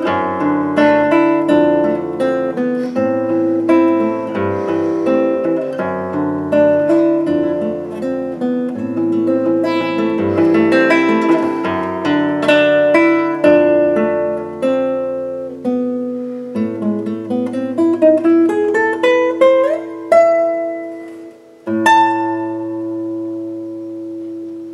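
Solo nylon-string classical guitar, fingerpicked melody over bass notes. Near the end a rising run of notes leads to a last chord that is left to ring out.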